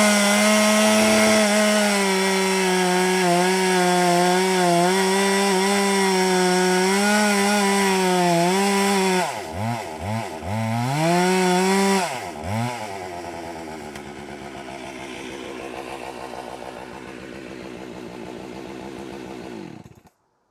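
Husqvarna 390XP 88cc two-stroke chainsaw running flat out in a cut with a steady high whine for about nine seconds, then the revs drop and climb back several times. It falls to a quieter idle, and the sound cuts off abruptly near the end.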